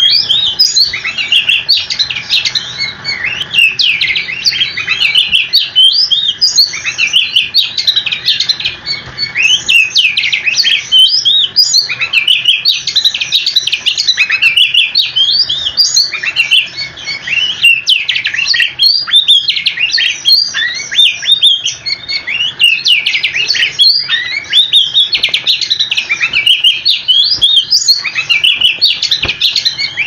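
Oriental magpie-robin (kacer) singing nonstop: a fast, unbroken stream of varied whistled notes and quick sweeping phrases.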